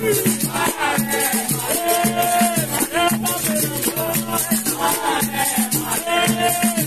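Capoeira roda music: berimbaus playing a repeating two-note rhythm, with a steady shaker rattle typical of the caxixi, while voices sing over it.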